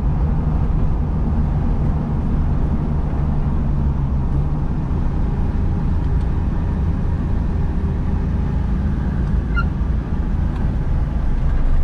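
1953 Chevrolet panel truck's inline six-cylinder engine running steadily while driving, heard from inside the cab with road noise.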